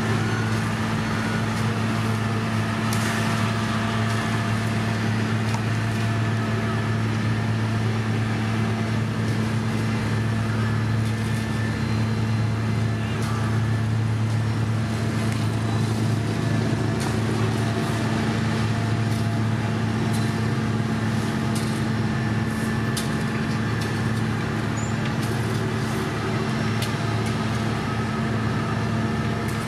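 Diesel engines of road-paving machinery, an asphalt paver fed by a dump truck, running steadily with a constant low hum and a few faint clicks and knocks.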